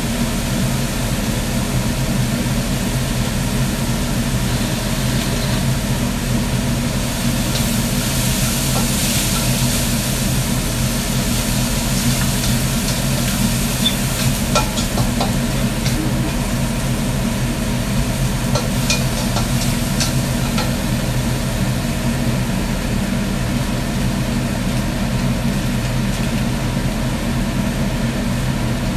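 Kitchen range hood fan running with a steady low hum, with a few light clicks in the middle.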